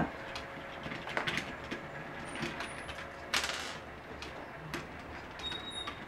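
Screwdriver clicking and scraping against the plastic hub of a small ceiling fan as its blade screws are undone, with one longer scrape a little past halfway.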